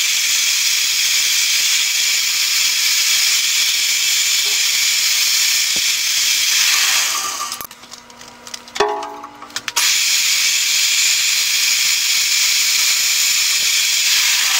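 Magnetic drill motor running with a steady high hiss while drilling quarter-inch pilot holes in steel tabs. It stops for about two seconds a little past halfway, with a knock in the pause, then runs again.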